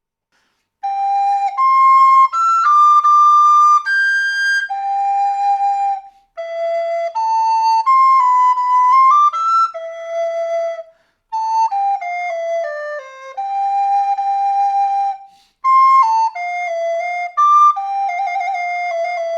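A recorder playing a solo melody in short stepwise notes. It starts about a second in and is split into four phrases by brief breaths.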